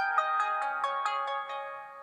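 LG Leon phone ringtone playing: a fast melody of bright electronic notes, about six a second, that dies away near the end.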